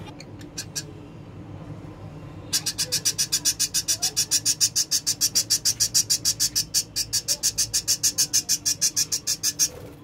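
Budgerigar chirping: a rapid, evenly spaced run of high chirps, about six or seven a second. It starts about two and a half seconds in and stops just before the end.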